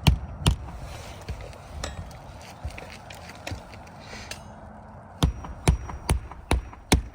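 A hammer nailing down a 3-tab asphalt shingle: two sharp strikes at the start, a few lighter taps, then a run of five strikes about two a second near the end.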